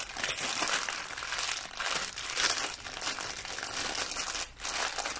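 Clear plastic film and a plastic bag of diamond-painting drills crinkling and rustling as they are handled, in irregular uneven strokes.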